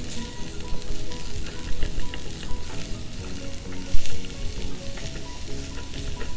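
Chopped onions and curry leaves sizzling in hot oil in a nonstick pan while a silicone spatula stirs and scrapes them around, with one louder knock about four seconds in.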